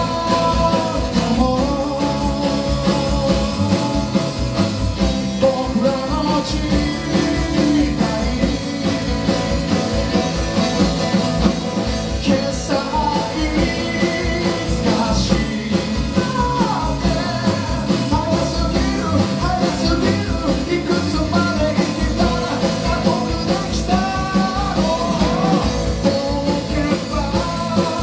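A live band playing a rock song: a man sings lead over strummed acoustic guitars, electric guitar and bass, with a steady beat.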